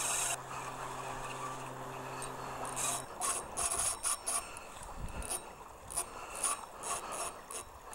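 Spinning fishing reel being worked: a steady mechanical whir for about three seconds that stops abruptly, then a string of irregular light clicks and rubs from the reel and rod being handled.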